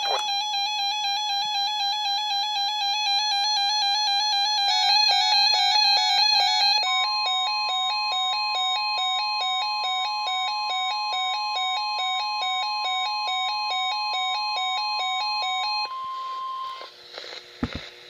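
Several NOAA weather alert radios sounding their alarm beeps together, a fast repeating two-pitch beeping, for a flood watch alert. About seven seconds in, the steady 1050 Hz weather radio alert tone joins and runs until it cuts off near the end, after the beeping has stopped, followed by a couple of knocks.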